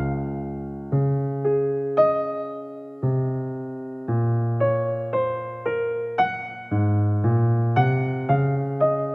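Background music on a keyboard: a gentle melody of single notes struck about twice a second, each fading away.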